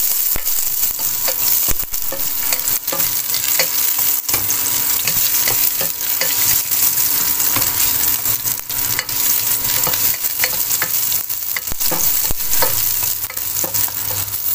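Garlic, ginger and onion sizzling in hot oil in a pot, frying toward golden brown, while a plastic ladle stirs them, scraping and clicking against the pan.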